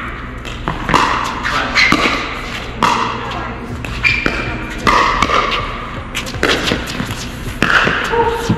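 Pickleball rally: paddles popping against the plastic ball roughly once a second, with short sharp hits that ring briefly in a large hall.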